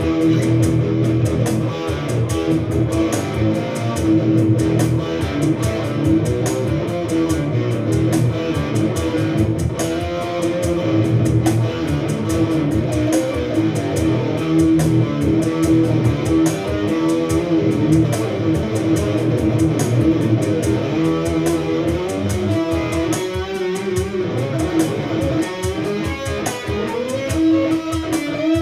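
Electric guitar improvising through an amplifier on its neck pickup, a dark tone that keeps its definition, with held notes and steady picked phrases.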